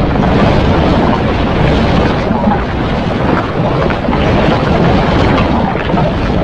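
Hedorah monster sound effect: a loud, continuous, rough rumble with no clear pitch.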